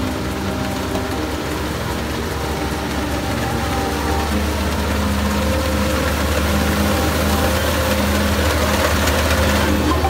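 Kubota ER-470 rice combine harvester running steadily while cutting and threshing standing rice: a low, even diesel engine drone that grows a little louder from about four seconds in as the machine comes closer.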